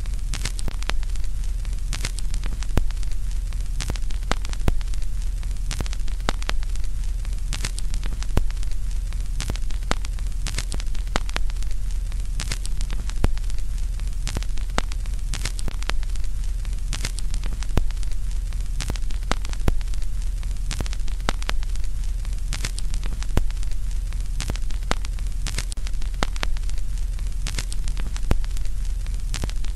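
Crackling static over a steady deep hum, with irregular sharp crackles several times a second.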